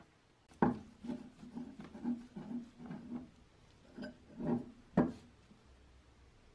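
Rusty small metal parts handled on the sprayer's pump rod, with a perished old seal crumbling off it: a string of knocks, scrapes and rubs, with sharper knocks about half a second in and again near five seconds.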